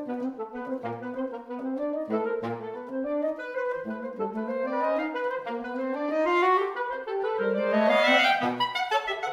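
Saxophone quartet (soprano, alto, tenor and baritone) playing a fast, rhythmic contemporary passage of quick interlocking runs; the lines climb and grow louder toward a peak near the end.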